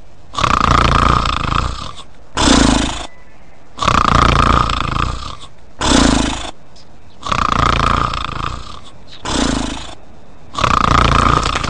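Cartoon snoring in a regular cycle: a long snore with a higher whistling tone, then a short lower snort, repeating about every three and a half seconds.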